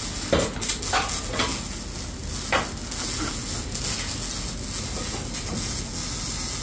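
A steel rod knocking and scraping inside a stainless-steel muffler canister as glass-wool packing is tamped down: five or six sharp clanks in the first three seconds, then softer handling sounds.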